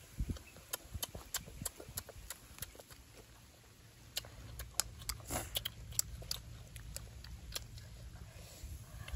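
Close-up eating sounds: chewing and lip smacking, heard as a string of short, sharp clicks, over a low steady rumble.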